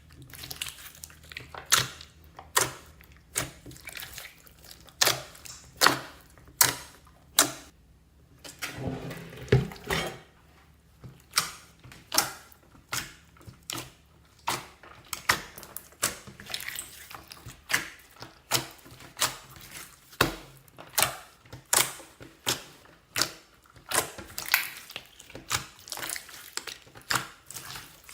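Slime being pressed and squeezed by hand, making sharp wet clicks and pops at roughly one a second, with a softer squelching stretch about nine seconds in.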